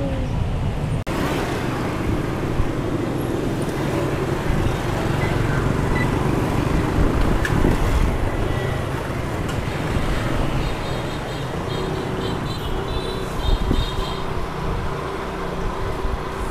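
Steady road traffic noise, with vehicles running.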